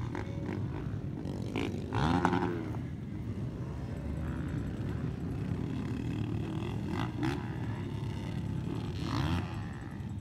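Motocross dirt bike engines revving and changing pitch as the bikes race round the track, with one bike loudest about two seconds in and another rise in revs near the end.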